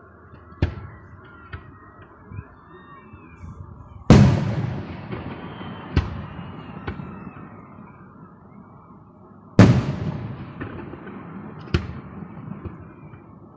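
Aerial firework shells bursting: several sharp bangs, with two big booms about four seconds in and again near ten seconds, each followed by a long fading rumble.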